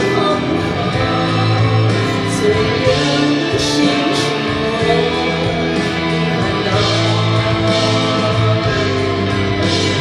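A woman sings into a microphone over instrumental accompaniment, with cymbal strokes coming back every second or two.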